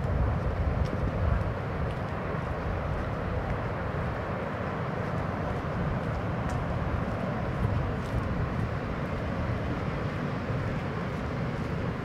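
Ocean surf breaking and washing onto a beach: a steady, deep rush of waves that swells a little in the first second or so.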